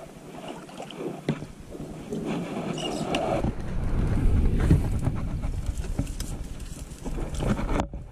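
Kayak working its way into mangrove roots, with scattered knocks and scrapes of hull and branches over a low rumbling noise on the microphone that builds about halfway through.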